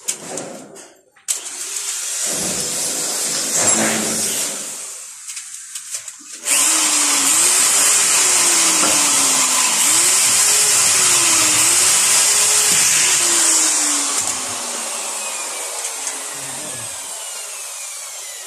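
Cordless drill drilling: a shorter, uneven run, then a long steady run of about seven seconds whose motor pitch repeatedly dips and recovers as the bit bites. It fades off gradually near the end.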